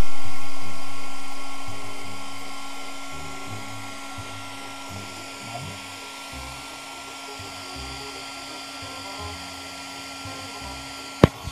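Handheld hair dryer blowing with a steady motor whine, loud at first and dying down over the first few seconds. Background music plays underneath, and a single sharp click comes near the end.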